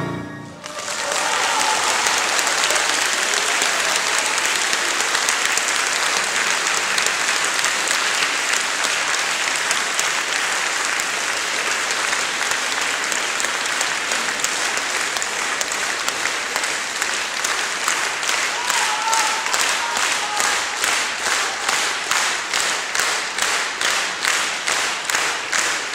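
Concert-hall audience applauding, breaking out as the trio's last chord dies away. In the last several seconds the clapping falls into rhythmic unison, a steady beat of about two claps a second.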